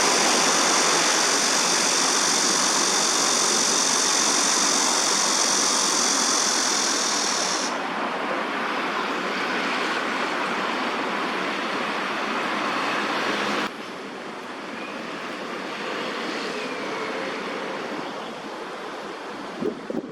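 Steady background noise of city traffic, with a high steady hiss over it that cuts off suddenly about eight seconds in. The whole noise drops abruptly again at about fourteen seconds.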